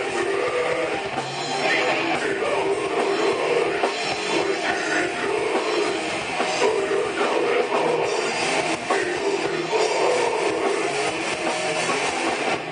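A metal band playing live: distorted electric guitars over a drum kit, with steady, densely packed drum hits.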